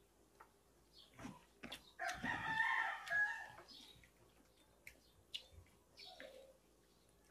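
A rooster crows once, a single call of about a second and a half starting about two seconds in.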